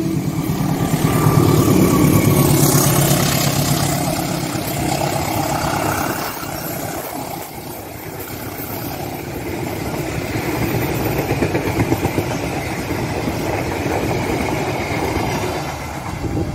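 GE CC204 diesel-electric locomotive passing close at speed, its engine running loud for the first few seconds. A long rake of passenger coaches then rolls by with a steady rush of wheel and rail noise until the tail passes near the end.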